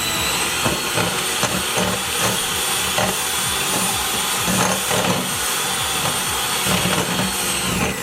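Electric mixer running at a steady high whine, beating rice flour into the cookie dough. It switches off at the very end.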